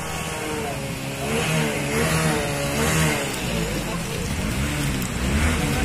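A small vehicle engine running, its pitch wavering up and down, with men's voices calling over it.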